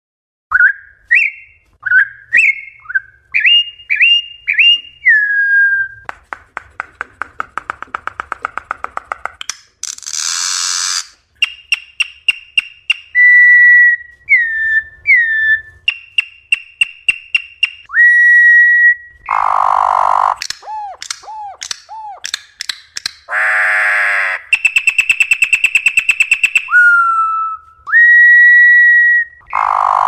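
Campo troupial (corrupião) singing its wild song: loud, clear whistled notes and slurred phrases, broken by fast rattling trills and harsh, grating notes.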